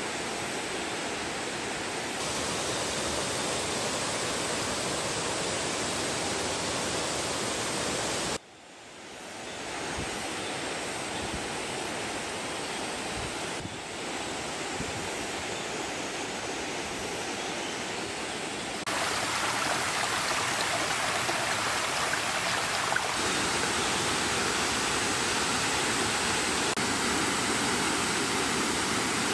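Steady rush of a mountain stream and waterfall pouring over rocks. It comes in several spliced stretches, dropping out suddenly about eight seconds in and fading back up.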